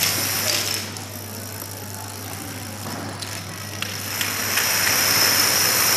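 Thousands of small plastic dominoes toppling in chains: a dense, rushing clatter with a few distinct clicks. It eases off for a couple of seconds, then swells louder again past the middle. A steady low hum runs underneath.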